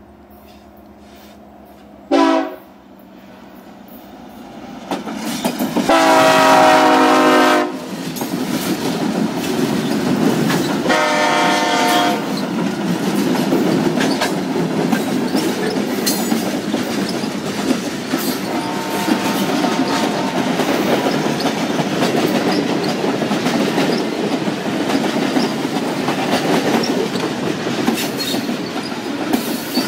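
A CN freight train led by five diesel locomotives (SD70M-2s and ES44DCs) approaching and passing. The lead locomotive's air horn gives a short blast about two seconds in, a long loud blast around six seconds and another around eleven, as the engine rumble swells. Then a steady rumble of boxcars rolling past, with wheels clicking over the rail joints.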